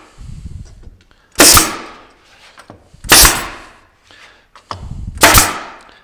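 Pneumatic crown stapler firing three times, roughly two seconds apart, each a sharp bang as it drives a 1¾-inch large crown staple into a wooden stretcher board.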